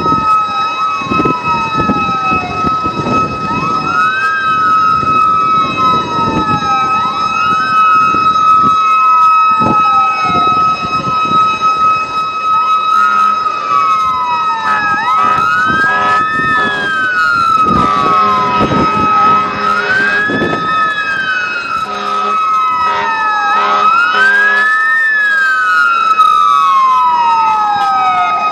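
Fire truck sirens wailing, at least two overlapping, each sweep rising quickly and falling slowly every couple of seconds, over a steady high-pitched tone that runs throughout.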